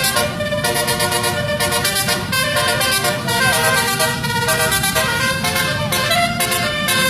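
Basuri telolet multi-tone bus horn playing a winding 'mengular' melody of quick changing notes, over a low rumble.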